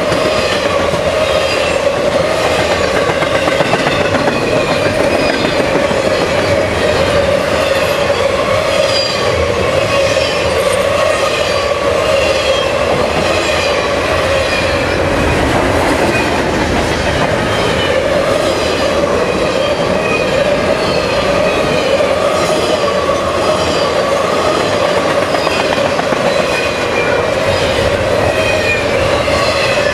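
Loaded double-stack intermodal well cars of a long freight train rolling past close by: steady rumble and clatter of steel wheels on the rails, with a steady high ringing tone and many short wheel squeals sliding in pitch.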